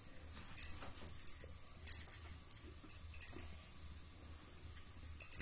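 Metal spoon scraping and clinking against a ceramic plate while heaping dry soya chunk powder over a batter-coated soya stick: a few short scrapes, roughly one every second or so.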